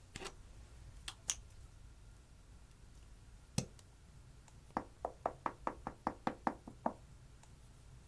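A few scattered clicks, then a quick run of about a dozen sharp taps or knocks on a small hard object, roughly five a second, about five seconds in.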